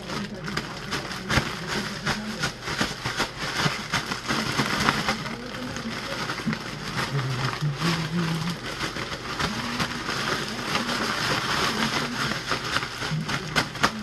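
Plastic bag of raw chicken strips and seasoned breading mix being shaken hard by hand, a rapid, continuous crinkling and rustling of the plastic as the strips are coated.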